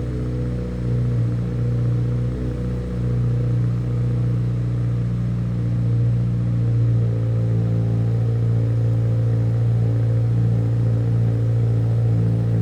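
2022 Subaru WRX's 2.4-litre turbocharged flat-four engine running steadily through a freshly installed Remark R1 titanium catback exhaust, with a low, even rumble that gets a little louder about halfway through.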